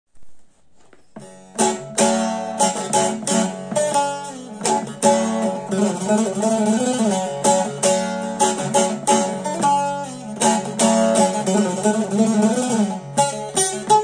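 Bağlama (long-necked Turkish saz) played solo: a quick run of plucked melody notes over a steady low drone from the open strings. It starts about a second in.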